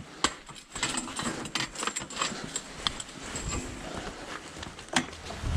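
Handling noise from light metal tube frames being picked up and carried: irregular clicks, knocks and rustling, with two sharp knocks standing out, one just after the start and one about five seconds in.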